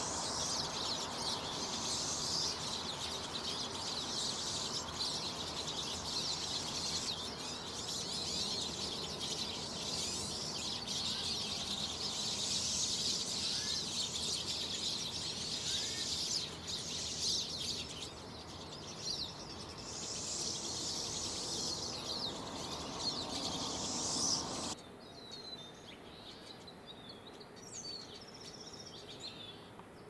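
Backyard songbirds chattering and calling in a dense, continuous high-pitched chorus over a steady background hiss. About three-quarters of the way through it cuts off abruptly, leaving a quieter background with a few separate high chirps.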